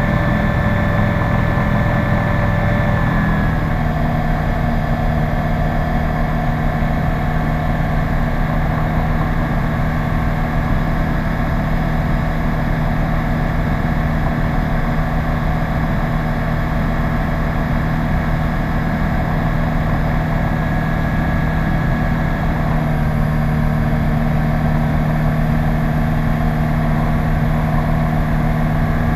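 Cockpit sound of a Cruiser PS-28 light aircraft in flight: its Rotax 912 engine and propeller drone steadily. The engine note shifts slightly a few seconds in and again about two-thirds of the way through.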